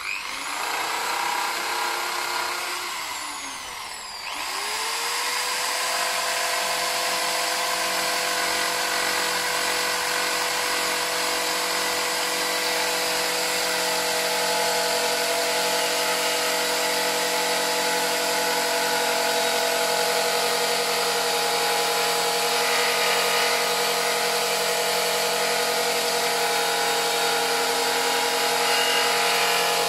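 Straight grinder with an abrasive strip disc spinning up and grinding paint and surface rust off a car's wheel arch and sill. About four seconds in it slows and spins up again, then runs at a steady pitch with a high hiss.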